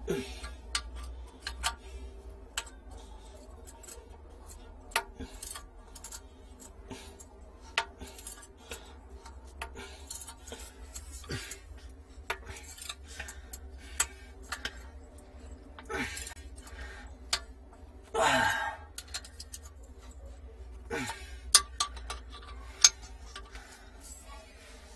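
Metal wrench clinking and knocking against a pipe valve fitting: irregular sharp metallic clicks, with one longer, louder noise about 18 seconds in, over a steady low hum.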